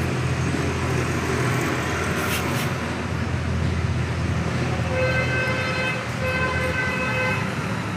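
Steady rumble of road traffic, with a vehicle horn sounding twice, each honk about a second long, in the second half.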